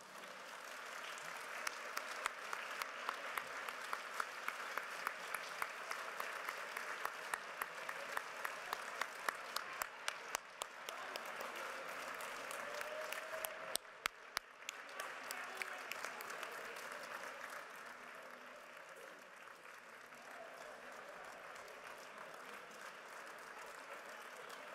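Audience applauding, many hands clapping. The clapping is loudest in the first half, drops out briefly about fourteen seconds in, then carries on more softly.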